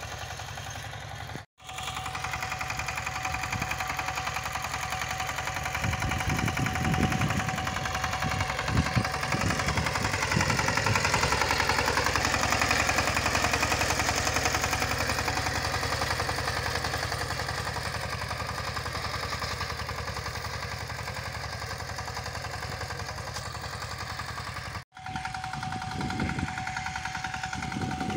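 An 18.5 HP walking tractor's engine runs steadily under load with a fast, even knocking beat as it pulls a plough through soil. The sound cuts out for an instant twice.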